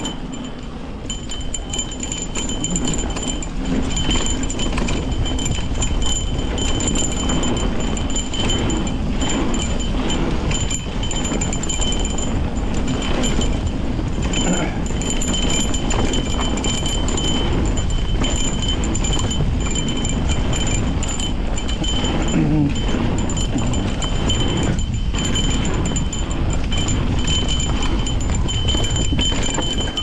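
Nukeproof Giga 297 carbon mountain bike descending a trail: a steady rush of tyres on dirt, wind and suspension working, with light metallic rattling and a high buzz that comes and goes.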